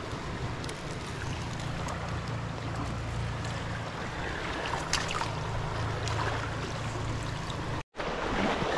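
Steady rush of a fast-flowing river, with a low rumble underneath and a few faint clicks of handling. The sound cuts out for an instant near the end.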